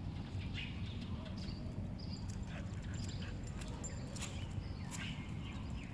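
Small dogs' claws clicking irregularly on concrete as they walk, over a steady low background rumble.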